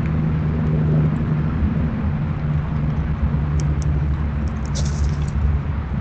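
Low, steady rumble of an engine running nearby, like a vehicle. A few short high-pitched chirps or clicks come over it between about three and a half and five seconds in.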